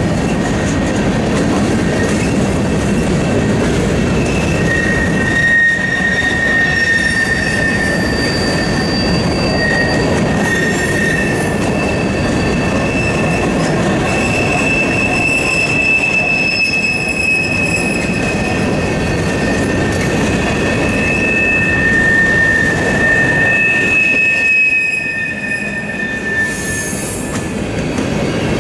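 Freight train of covered hopper and flat cars rolling past close by: a steady rumble of steel wheels on rail, with long, high wheel squeals that come and go through most of the passage.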